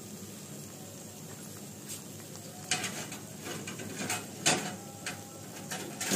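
Potato vadas in gram-flour batter deep-frying in a steel kadhai of hot oil: a steady sizzle, with a few sharp clicks in the second half.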